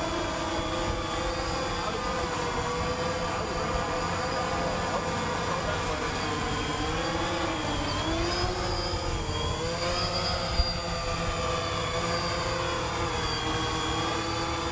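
DJI Phantom quadcopter's four electric motors and propellers whining in flight, a steady multi-toned hum whose pitch dips and rises around the middle as the pilot manoeuvres it.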